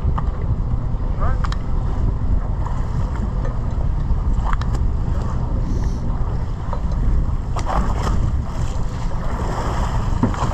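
Steady low rumble of wind on the microphone and a fishing boat out at sea, with faint voices now and then.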